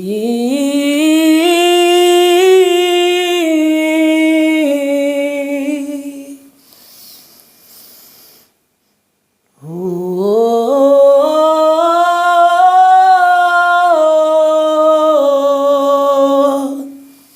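A solo voice humming wordlessly, unaccompanied, in two long phrases. Each phrase slides up into a held note that steps down in pitch near its end, and there is a pause of about three seconds between them.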